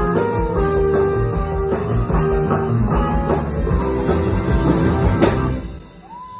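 Live rock band playing with guitar and drums, ending on a final hit about five seconds in. Right at the end the crowd starts whooping and whistling.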